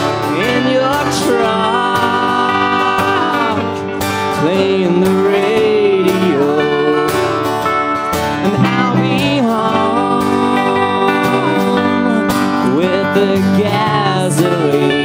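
Live country-folk band playing: acoustic guitar strumming and accordion chords, with a wavering melody line over them.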